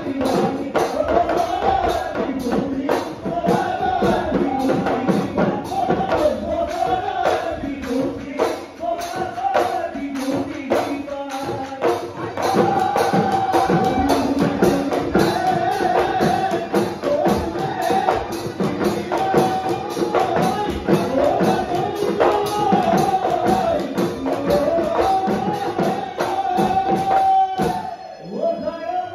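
Bihu husori music: Assamese dhol drums beaten in a fast, driving rhythm with bright metallic jingling percussion, under a bending sung melody line. Near the end the drumming stops and a single held note carries on.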